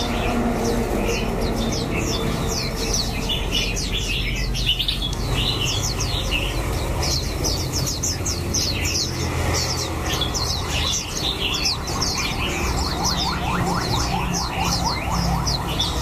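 A dense chorus of caged songbirds, white-eyes among them, with many short high chirps overlapping throughout and a fast trill of close-set notes in the second half.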